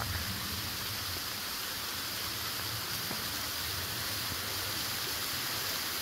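Steady rushing hiss of a creek cascading down a steep solid-rock cliff face in thin streams, a roadside waterfall.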